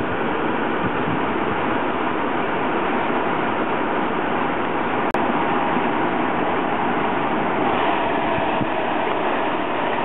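Small 240-volt multi-speed squirrel-cage furnace blower running, a steady loud rush of air. Its outlet is open with no flow restriction, so the little motor labors and does not get up to speed. A single sharp click comes about halfway through.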